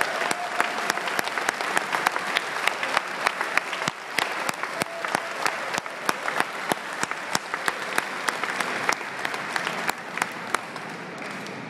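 Crowd applauding: sustained clapping with many sharp individual claps standing out, thinning out near the end.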